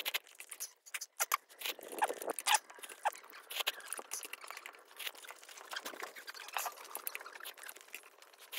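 Close-up eating sounds of spicy instant ramen: noodles slurped and chewed from the pot, heard as a quick, irregular run of wet smacks and small clicks, loudest in the first few seconds.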